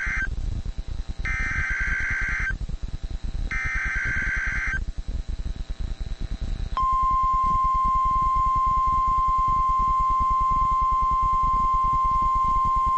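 NOAA Weather Radio Emergency Alert System broadcast over radio static: the end of one harsh, buzzy SAME header data burst, then two more about a second long and a second apart. About seven seconds in, the steady single-pitched 1050 Hz warning alarm tone starts and holds, announcing a warning-level alert.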